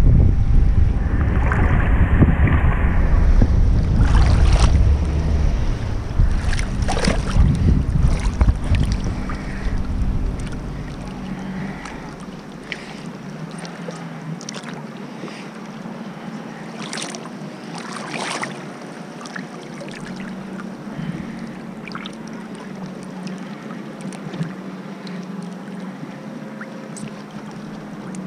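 Lake water churning and sloshing around a wakeboarder floating at the surface, loud with low rumble for the first ten seconds or so, then quieter lapping with small splashes. Under it a tow boat's engine hums steadily.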